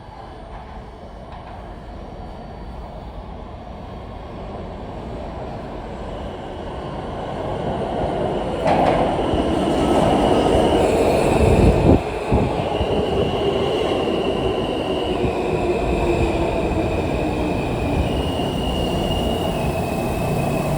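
R160 subway train coming into the station, its rumble building over about nine seconds and staying loud, with high squealing tones that shift up and down in pitch through the second half.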